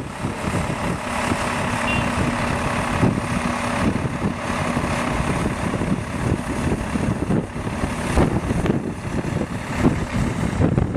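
A vehicle engine running steadily, with a low hum for a few seconds near the start.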